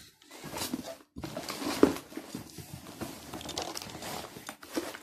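Cardboard packaging and a plastic bag rustling and crinkling as a shipping box is opened and its contents handled, with one sharp tap a little under two seconds in.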